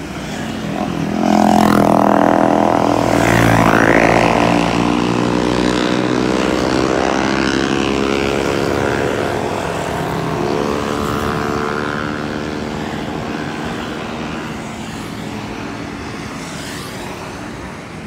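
Motorcycles and other motor traffic passing close by. Engine noise swells about a second and a half in, stays loud for a few seconds, then slowly fades.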